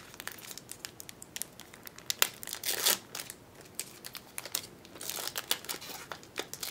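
Crinkling and tearing of a foil Pokémon booster pack wrapper being handled and opened, a run of small crackles with a couple of louder rustles.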